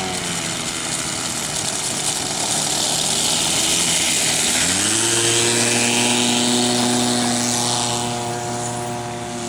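Kawasaki TH34 two-stroke trimmer engine spinning a 15x10 propeller on a homemade RC plane. It runs at a lower, uneven throttle at first, then about halfway through rises quickly to a steady, higher-pitched full-power run for the takeoff. It gets a little quieter near the end as the plane pulls away.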